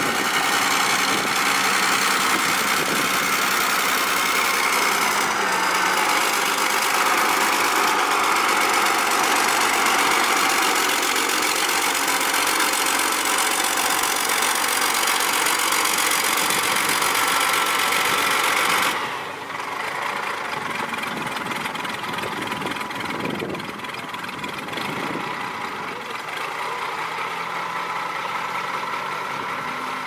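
Diesel engines of heavy road-construction machinery running steadily, the noise dropping abruptly to a lower level about nineteen seconds in.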